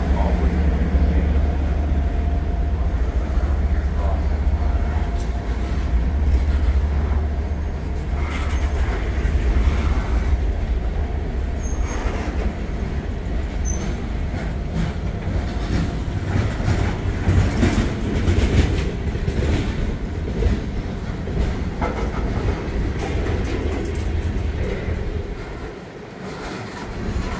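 A train rolling past at close range. A heavy low rumble at first gives way to the steady rolling of the cars, with many clicks and clacks of the wheels over rail joints and a couple of brief faint wheel squeals about halfway through.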